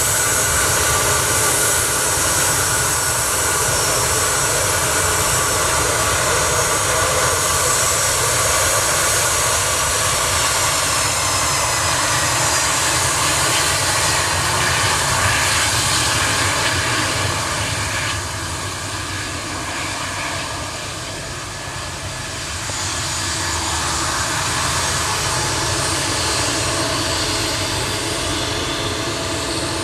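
Twin rear-mounted turbofan engines of a Bombardier CRJ regional jet at taxi power, a steady multi-tone jet whine. The pitch glides a little as the jet turns, and it dips briefly in loudness about twenty seconds in.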